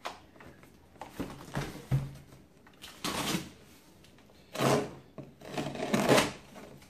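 Folding knife slicing through the packing tape along the top of a cardboard box, in a series of short scratchy strokes with the cardboard scraping and rustling. The strokes grow louder about two-thirds of the way in and near the end.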